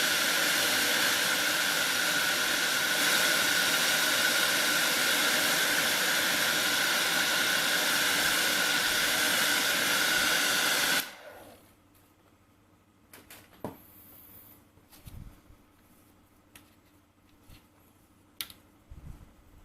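Electric hot-air blower running steadily with an even, loud hiss, then switched off suddenly about 11 seconds in. After that come only a few faint clicks and small handling knocks.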